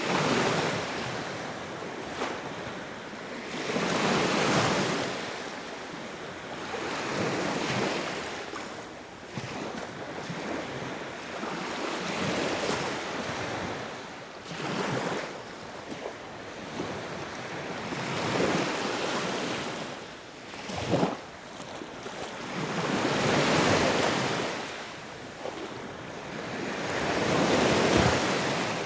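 Sea waves breaking and washing in, swelling and falling back every three to five seconds, with one sharper splash about two-thirds of the way through.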